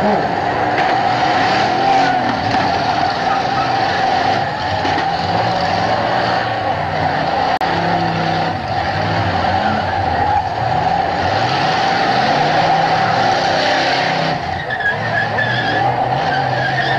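Several demolition-derby cars' V8-era engines revving hard and overlapping, rising and falling, under a continuous high squeal from wheels spinning.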